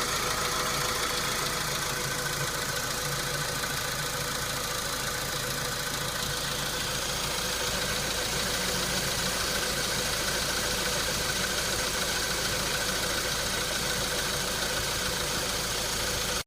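Volkswagen Polo Sedan engine idling steadily with a knock in it, which the owner hears on cold start and says fades away as the engine warms up.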